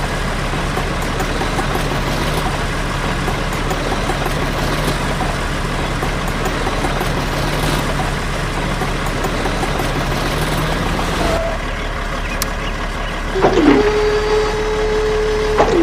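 Small electric motor of a DIY borewell drilling model running with a steady whir and low hum. The sound changes about three-quarters of the way in, and near the end come two short whines that rise and fall around a held tone.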